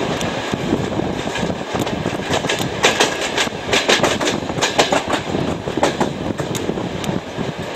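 Passenger train carriage running over jointed track, heard from a carriage window: a steady rumble with the wheels clicking over the rail joints, the clicks coming thickest in the middle of the stretch.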